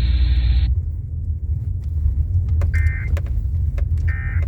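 Two short bursts of Emergency Alert System digital data tones from an FM radio, about two and a half seconds in and again near the end: the end-of-message code that closes the alert test. A steady low vehicle rumble runs underneath, and the radio's preceding audio cuts off just before the first burst.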